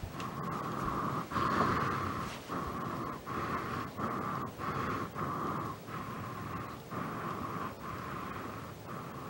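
Rapid, heavy breathing: rushes of air broken by brief pauses, a little over one breath a second.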